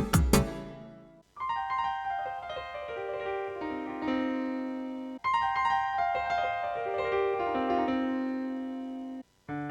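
Piano voice on a Yamaha arranger keyboard playing a short descending phrase of held notes, the same phrase twice with an abrupt cut between, as in a side-by-side comparison of the SX-920 and Genos. The tail of an earlier full accompaniment style dies away just before, and a new piano phrase starts near the end.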